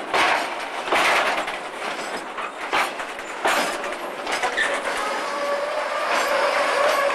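Freight wagons loaded with rails rolling past, their wheels clattering over rail joints with several sharp clacks. A steady tone sets in about five seconds in and grows toward the end.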